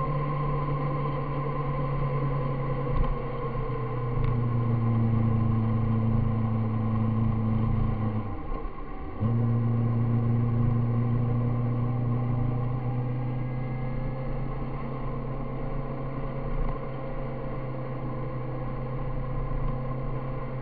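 Motorcycle engine running steadily at road speed, heard from the bike. About eight seconds in the drone briefly drops away, then picks up again.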